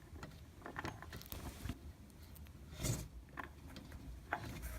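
Faint scattered clicks and a few light knocks of plastic push-fit plumbing fittings being twisted to lock their collets and handled.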